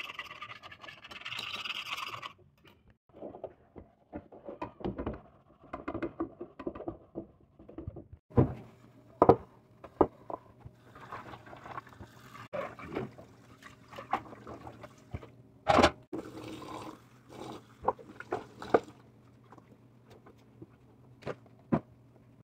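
Dishes being washed by hand at a sink: metal bowls, pots and utensils knock and scrape together in irregular clatters, with some scrubbing and water. Background music plays for about the first two seconds.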